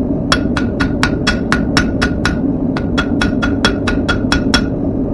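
Hammer striking a thin, hot square steel bar on an anvil, tapering its point to a square tip: a fast run of ringing blows, about four a second, with a short pause near the middle. A steady low rumble runs underneath.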